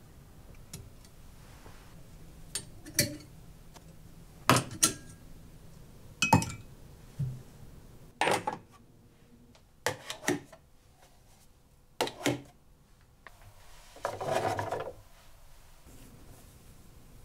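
Sharp clicks and clinks of hooks and ceramic mugs knocking against a white hanging rail as they are fitted and hung up, about a dozen knocks, mostly in pairs. Near the end, a brief soft rustle of cloth being handled.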